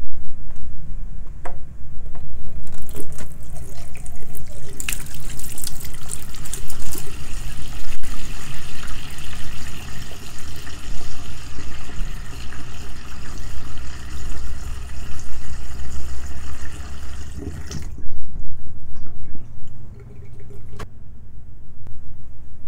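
Water running and splashing from a kitchen tap into a sink over a steady low rumble. The water stops about eighteen seconds in.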